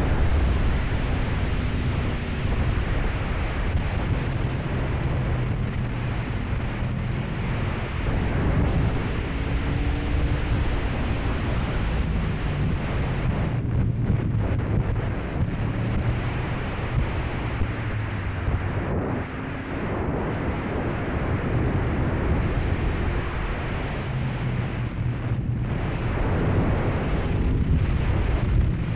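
Wind rumbling and buffeting on an action camera's built-in microphone on a motorcycle at riding speed, with the 1997 Honda VFR750F's V4 engine faintly underneath, its pitch rising and falling with the throttle.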